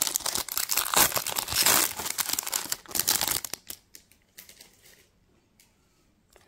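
Foil trading-card pack wrapper being torn open and crinkled by hand. The crinkling dies down about three and a half seconds in, leaving a few faint clicks.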